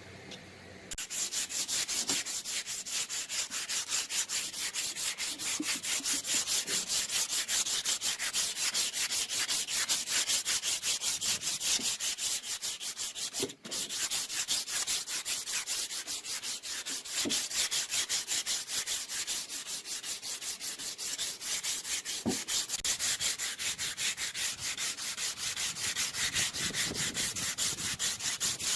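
Sandpaper rubbed back and forth by hand in quick, even strokes, sanding an axe during restoration. The rubbing starts about a second in and stops briefly about halfway through.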